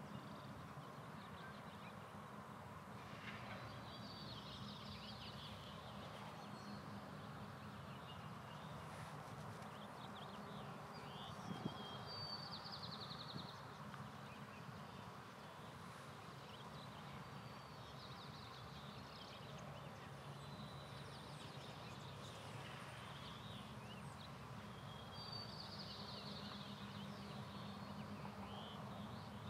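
Steady outdoor background hum with faint, high bird calls now and then, a couple of them rapid trills, and a single soft knock about twelve seconds in.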